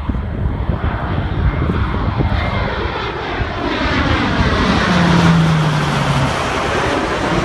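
C-130 Hercules turboprop transport flying low overhead, the drone of its four propeller engines growing louder as it approaches. About five seconds in, as it passes over, a propeller hum drops in pitch.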